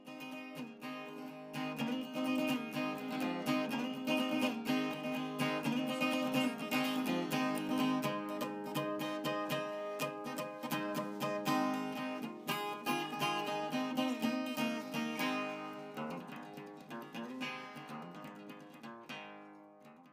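Acoustic guitar music, fading out over the last few seconds.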